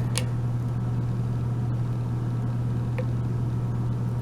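Steady low electrical or fan-like hum, with two faint clicks of a lock pick working the pins of a padlock, one near the start and one about three seconds in.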